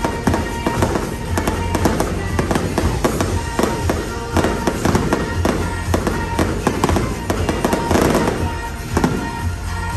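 Fireworks display: many bangs and crackles going off in quick succession over loud music played along with the show.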